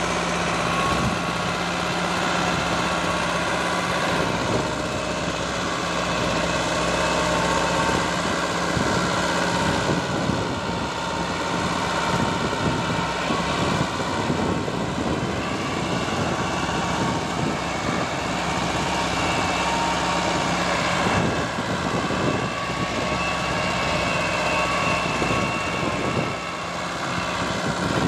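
Diesel engine of a Belarus 1000 4x4 tractor running steadily as the tractor tows a trailer slowly across a soft field.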